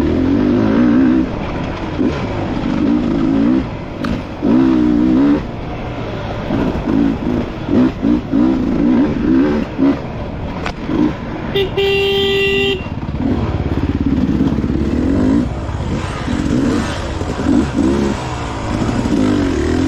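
Off-road dirt bike engine revving up and down again and again as the throttle is worked through a hare scramble course. A steady horn-like tone sounds for about a second near the middle.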